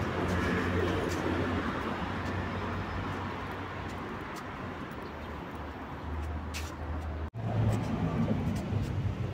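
Street traffic: car engines running with a steady low hum. The sound drops out for an instant about seven seconds in.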